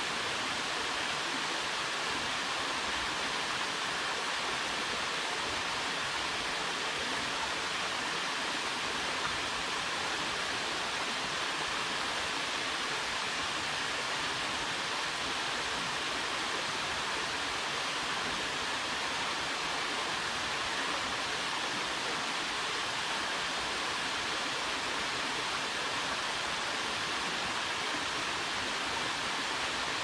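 Small waterfall and rocky forest stream, water falling and flowing in a steady, even rush of noise.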